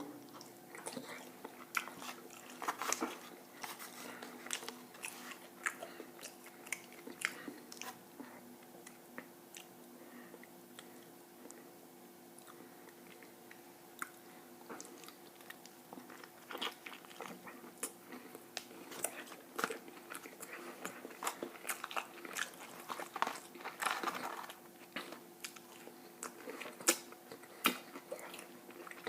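A person chewing and biting food close to the microphone, with many short crisp crunches and clicks at an irregular pace, over a faint steady hum.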